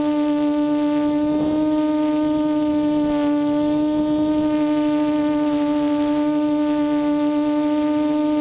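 Lumenier QAV400 quadcopter's 1100 kV brushless motors and propellers holding a hover, a loud, steady, high-pitched hum whose pitch stays nearly constant.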